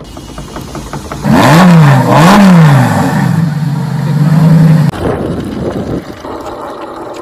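Car engine revving: two quick blips up and down, then held at a steady high rev for about two seconds before cutting off suddenly, followed by a quieter rumble.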